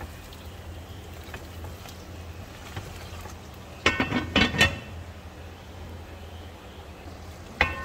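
A pot lid clattering several times as it is set down onto a cooking pan, about four seconds in, with a single ringing clink near the end, over a steady low hum and faint scrapes of a spatula stirring.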